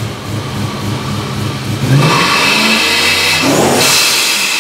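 BMW M3 E92's V8 with a G-Power centrifugal supercharger, blipped from idle about two seconds in, then revved hard near the end with a rising supercharger whine. Each time the throttle shuts, the blow-off valve vents with a loud hiss.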